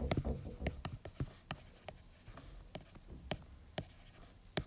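Stylus tip tapping on a tablet's glass screen during handwriting: a string of small, sharp, irregular clicks, about two or three a second.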